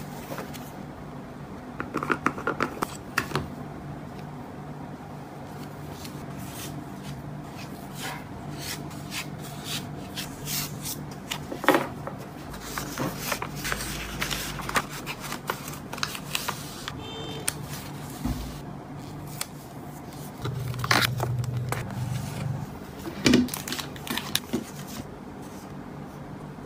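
Paper envelopes and card-backed sticker sheets handled by hand: irregular crisp rustles, slides and light taps of paper and card, in bursts with short pauses and a few sharper taps.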